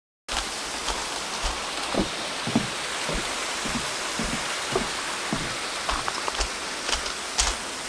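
Footsteps crunching on a gravel path at a walking pace, about two steps a second, over a steady rushing hiss.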